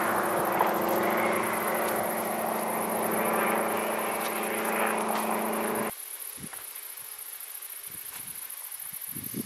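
A steady engine-like drone with a hiss over it, which cuts off abruptly about six seconds in. Crickets chirp throughout.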